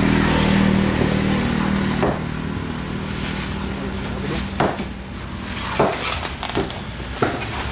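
A large knife slicing through skipjack tuna, its blade knocking sharply on the wooden chopping block several times, more often toward the end. Underneath is a steady low hum that eases after about two seconds.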